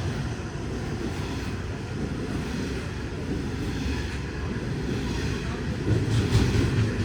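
Long freight train rolling past, a steady low rumble of wagons on the rails, with a short spell of louder rattling about six seconds in.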